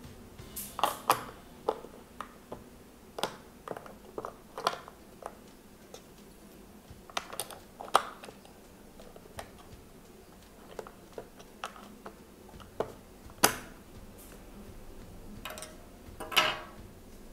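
Irregular sharp plastic clicks and knocks as batteries are pressed into a light box's plastic battery compartment and its cover is handled and fitted back on. Two louder knocks come about 8 and 13 seconds in, and a short run of clicks near the end.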